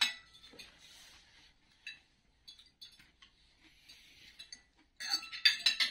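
Cutlery clinking and scraping on china plates and dishes during a meal: scattered light clinks, with a quick run of louder, sharper clinks about five seconds in.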